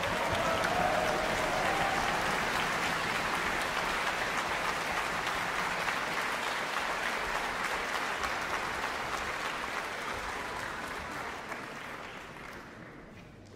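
Concert-hall audience applauding: a large crowd's steady, dense clapping that fades away over the last few seconds.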